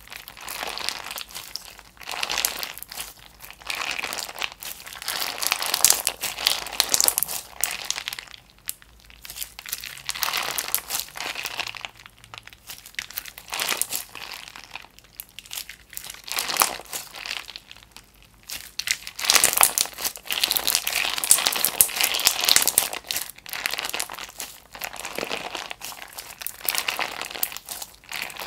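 Clear slime packed with pink and green rose-shaped pieces being squeezed, folded and pressed by hand, giving a dense run of small clicks and pops that come in waves, loudest about a fifth of the way in and again for a few seconds past two-thirds.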